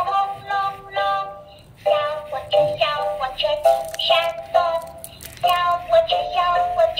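Electronic bunny toy playing a synthesized children's song through its small built-in speaker: a cheerful electronic singing voice in short, stepped notes, with a brief pause about a second and a half in.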